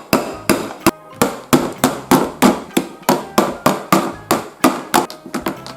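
Small cake-shaped toy hammer striking a Secret Crush doll's plastic heart-shaped package over and over, about three sharp taps a second, to crush it open.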